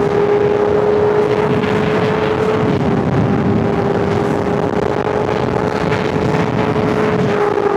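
Honda CBR600RR's inline-four engine running at a steady high pitch, the note held evenly and easing down slightly near the end.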